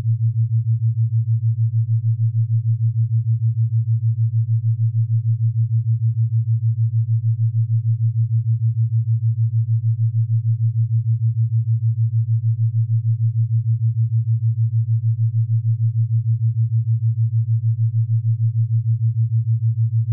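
A steady, low electronic test tone: one pure hum-like pitch that pulses rapidly and evenly in loudness and never changes.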